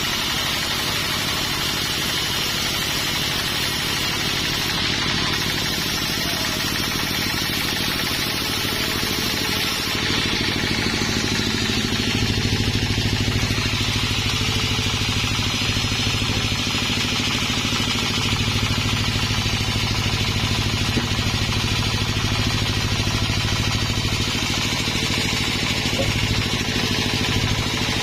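A sawmill's engine running steadily, with a low hum that grows fuller and louder about ten to twelve seconds in.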